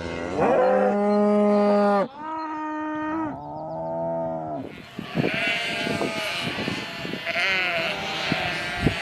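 Cattle mooing: three long, drawn-out moos one after another, then from about halfway a noisier stretch of wavering, higher-pitched calls, with the herd still heard.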